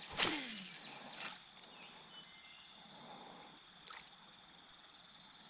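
A sudden splash in the creek water just after the start that fades out over about a second, then a small click later on. A steady high-pitched whine runs underneath throughout.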